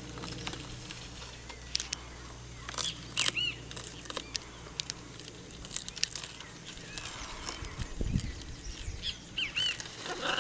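Birds chirping outdoors: a few short chirps that rise and fall, grouped about 3 seconds in and again near the end, over scattered sharp clicks and rustles.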